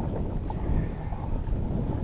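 Water rushing and splashing along the hull of a moving kayak, with wind buffeting the microphone in a steady low rumble.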